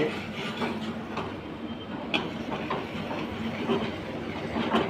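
Steady rushing noise at a lit gas stove while butter melts in a metal pan, with a few sharp clicks of a metal spoon against the pan.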